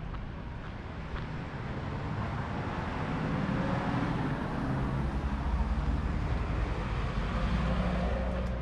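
A truck driving past on the street, its engine rumble growing louder over a few seconds and staying loud through the second half.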